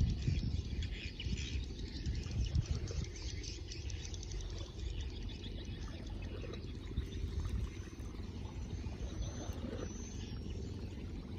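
Faint chirping and twittering of birds over a steady, irregular low rumble, with a few short high calls near the end.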